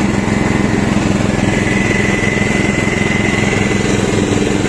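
Ride-on lawn tractor mower's 12.5 hp engine running steadily, with a thin high whine over it.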